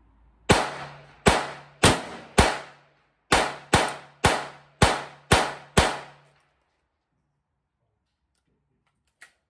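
Rapid gunfire: ten shots in two quick strings, first four and then six, about half a second apart, each ringing out briefly. A single faint click comes near the end.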